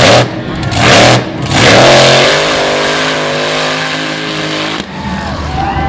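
Big-block mud truck engine revved in two short bursts, then held at high revs for about three seconds as the truck drives through the mud pit, cutting off abruptly near the end.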